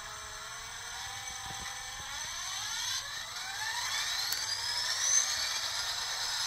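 The sound decoder of an N-scale Bachmann GP40 diesel locomotive plays the diesel engine start-up through its tiny speaker. The engine sound runs steadily, climbs in pitch from about two seconds in, and levels off near the end.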